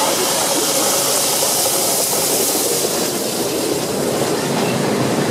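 BDZ steam locomotive 46.03 passing close by, its steam hissing over the rumble of wheels on the rails. The hiss is loudest about one to three seconds in, and the train wagons follow.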